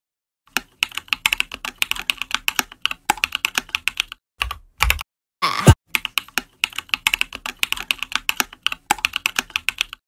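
Keyboard typing sound effect: quick runs of keystrokes, several a second, with short pauses. About halfway through come a couple of heavier key thumps, then a louder downward sweep ending in a sharp thud, the loudest sound here.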